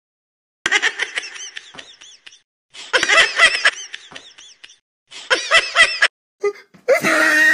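High-pitched laughter in three bouts, each a run of quick rising-and-falling pitch swoops, then a short harsher burst near the end.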